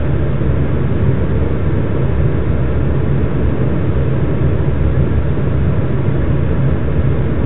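Steady low rumble, holding at an even level throughout.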